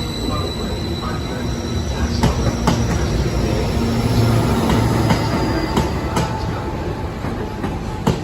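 Class 231 diesel multiple unit moving on the track: a low engine and running hum that grows louder through the middle, a faint high wheel squeal, and several sharp clicks of the wheels over rail joints.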